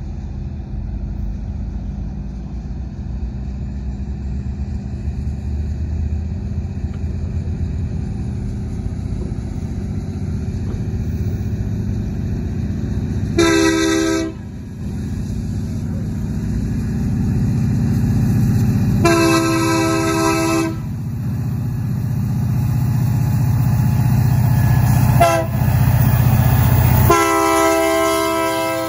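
Union Pacific diesel freight locomotives approaching and passing, their engines' rumble growing louder. The multi-tone air horn sounds four times: two longer blasts, a brief one, then a long one, the long-long-short-long pattern sounded for a grade crossing.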